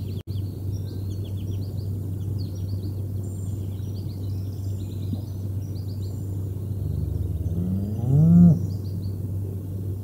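A cow mooing once from the pasture near the end: a drawn-out call that rises in pitch and grows loud before cutting off. Small birds chirp throughout over a steady low hum.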